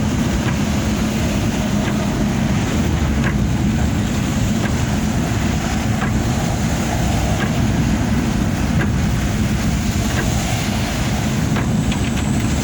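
Heavy diesel truck engine running steadily, a continuous low drone.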